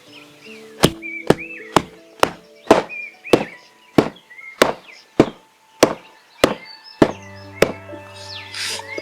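About thirteen hard blows of a tool striking hemp in a steady rhythm of roughly two a second, stopping near the end, as the hemp is worked for papermaking. Background music with bird chirps runs under it.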